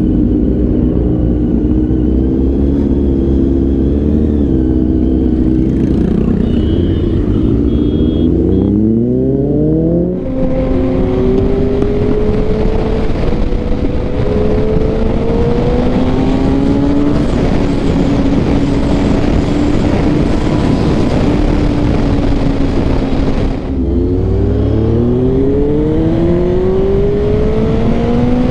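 Sport motorcycle engine pulling away and accelerating up through the gears, its pitch climbing in repeated rises. From about ten seconds in, loud wind rush over the microphone covers a steadier engine note at speed. After a short dip a little after twenty-three seconds, the engine climbs through the gears again.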